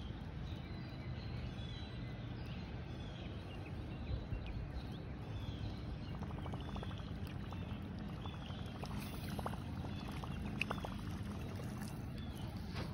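A fishing lure being retrieved through lake water: light splashing and a few small clicks over a steady low rush of wind on the microphone.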